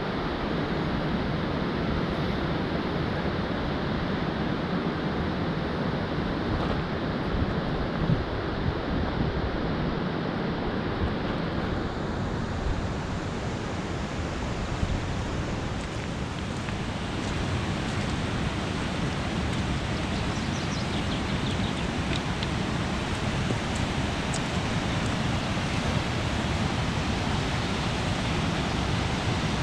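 Steady rushing noise of falling water mixed with wind buffeting the microphone; the hiss of the water gets brighter about twelve seconds in.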